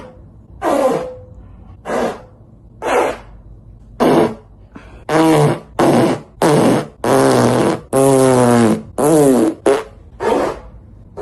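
A rapid string of about a dozen separate fart sounds, each a short pitched burst, some sliding down in pitch. The longest lasts about a second, a little past the middle.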